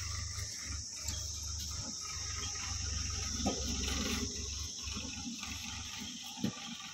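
Insects chirring steadily in a high, even drone over a low rumble, with a few sharp knocks, the loudest near the end.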